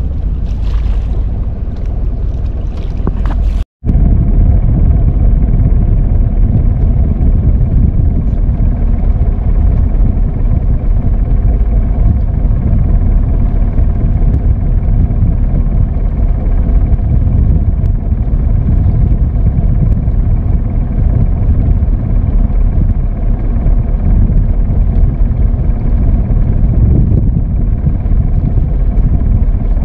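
Small wooden fishing boat's engine running steadily with a low rumble, wind buffeting the microphone. In the first few seconds water splashes at the hull, then the sound breaks off briefly before the engine rumble carries on.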